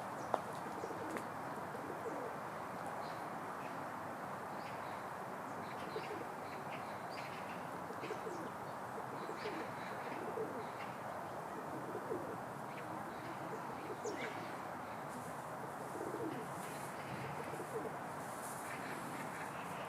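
Birds calling over a steady background hiss: repeated short low calls and occasional brief high chirps.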